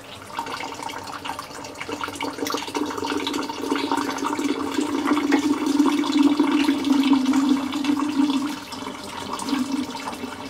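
Water from a hot water tank's drain valve pouring out of a hose into a plastic tub, a steady splashing that builds through the middle and eases near the end. The tank is being drained to flush out sediment.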